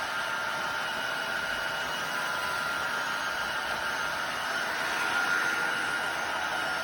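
Tineco iFloor 5 Steam wet-dry floor cleaner running steadily, a constant machine hiss with a high whine, while it heats up its steam.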